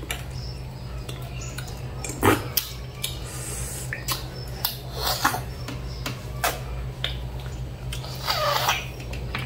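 Eating sounds from a bowl of instant noodle soup: chopsticks and a spoon clicking against a ceramic bowl, with a longer slurp near the end, over a steady low hum.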